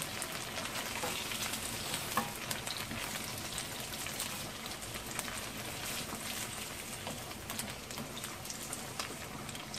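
Hot oil sizzling and crackling around fried chicken pieces in a nonstick wok, with light scrapes and taps of a spatula as the pieces are lifted out.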